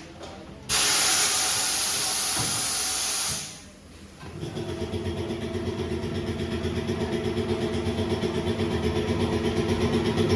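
Pneumatic tyre-changing machine: a loud blast of compressed air hisses for about three seconds. Then a motor runs with a steady pulsing hum that slowly grows louder.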